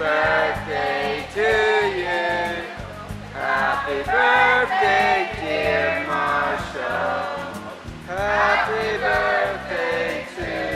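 Background music: a song with singing over a steady bass line.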